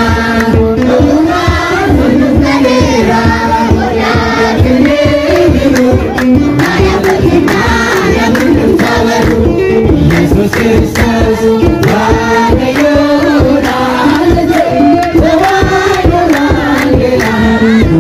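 Choir singing an Ethiopian Orthodox hymn (faaruu) in unison, over a steady beat of hand clapping.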